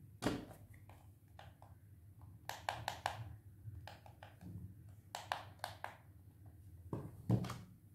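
Scattered plastic clicks and taps from hands handling a toy RC car and working the sticks of its plastic remote control, with a sharper knock near the start and another near the end.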